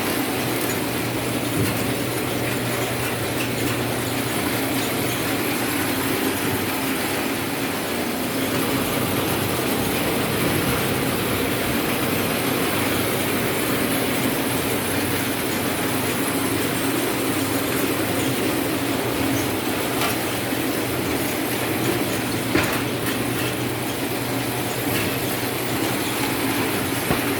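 Citrus sorting machine running: a steady mechanical rattle and clatter over a low hum, with a few light knocks.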